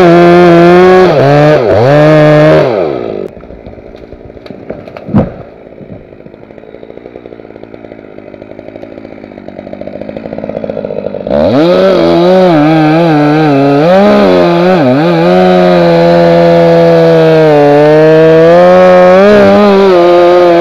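Holzfforma G366 two-stroke chainsaw, a copy of the Stihl MS361 with its top revs raised to match, running at full throttle through a tree trunk, then dropping to idle for about eight seconds with one sharp thump about five seconds in. It then revs up again and cuts into the felled log, its pitch dipping as the chain loads up in the wood.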